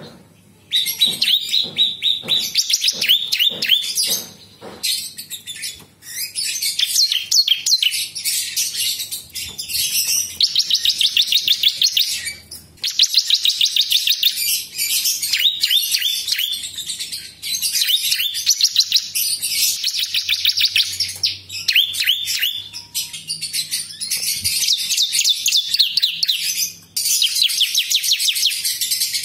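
Prinia (prenjak lumut) singing: fast, high trills of rapidly repeated notes in phrases of one to three seconds, with short breaks between them. A few light clicks come in the first few seconds.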